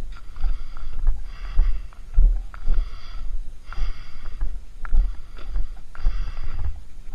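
A man breathing hard close to the microphone, about one breath a second, with low thuds of footsteps on a dirt track as he walks.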